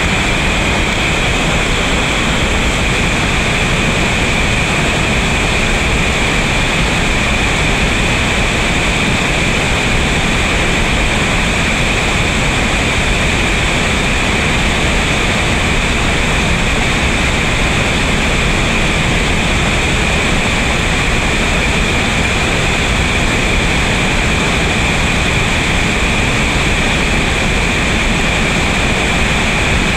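Steady rush of whitewater pouring over Baby Falls, a rock-ledge waterfall on the Tellico River, loud and unbroken.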